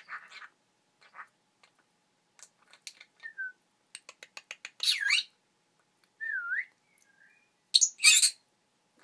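High whistling chirps and squeaks from small pets, some sliding down and back up in pitch, with a quick run of clicks about four seconds in and the loudest harsh squeaks near the end.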